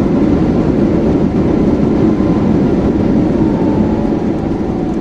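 Boeing 737 MAX cabin noise during the landing rollout just after touchdown: a loud, steady rumble from the engines and the wheels on the runway, with a faint whine slowly falling in pitch.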